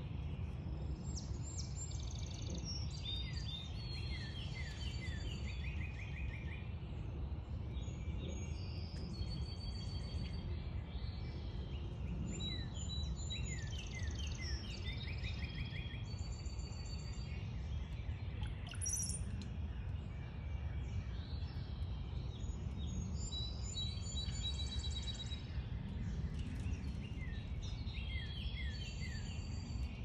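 Backyard songbirds singing and chirping in repeated bouts of quick, sliding high notes and short trills, quieter for a few seconds in the middle, over a steady low background rumble.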